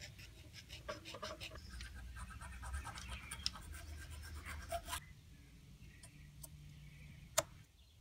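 Hand file scraping in quick, repeated strokes against a folding knife's plastic handle scale and metal liner clamped in a vise; the filing stops abruptly about five seconds in. A few light ticks follow, then one sharp click near the end.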